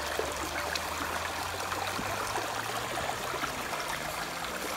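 Small shallow stream running and trickling over stones in a steady wash of water noise.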